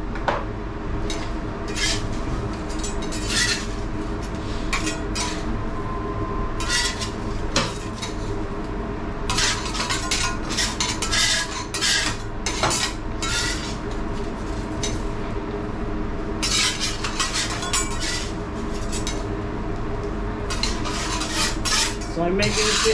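Metal teppanyaki spatulas clinking and scraping on a flat steel griddle while cooking egg, in runs of sharp taps and scrapes, over a steady low hum.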